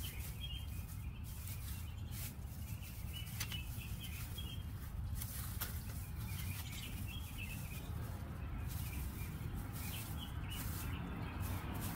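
Faint outdoor background: birds chirping here and there over a low steady rumble, with a few faint clicks.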